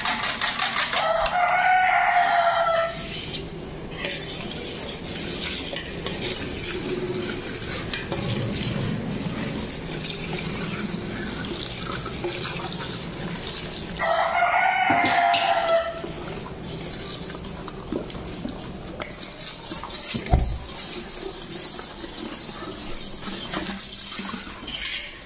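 A rooster crows twice, each crow about two seconds long and about thirteen seconds apart. Underneath is a steady bed of noise with a metal ladle stirring and clinking in a large steel pot of milk and custard.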